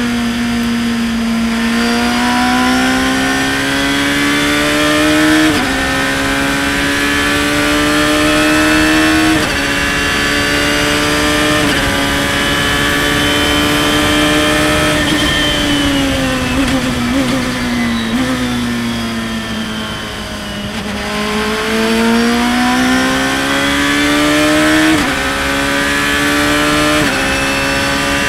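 Radical race car's engine at high revs on the track, heard from onboard. The note climbs and drops sharply at each quick upshift several times. In the middle the pitch falls for a few seconds as the car slows, then it climbs again with two more upshifts near the end.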